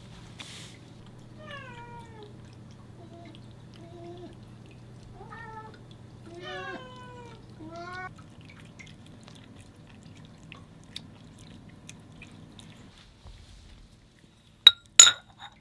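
A domestic cat meowing about five times, short calls that fall in pitch, over a low steady hum. Near the end come two sharp, loud clicks as a bowl is set down.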